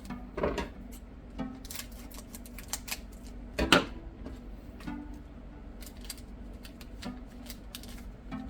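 Trading cards being handled and flipped through: a run of light clicks and rustles, with a louder rustle about three and a half seconds in.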